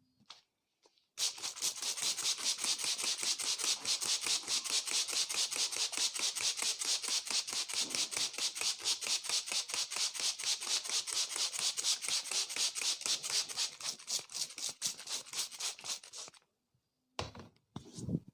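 Vigorous head massage: hands rubbing and scratching through the hair and over the scalp in a fast, even rhythm of scratchy strokes, several a second. The rubbing starts about a second in, stops shortly before the end, and is followed by a couple of duller knocks.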